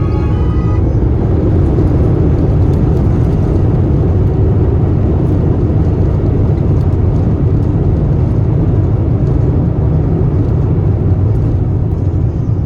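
Loud, steady roar and rumble inside the cabin of an Airbus A350 on its arrival, from its engines and airframe, with no change in level.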